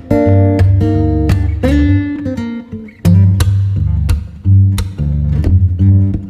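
Background music: plucked acoustic guitar with a bass line.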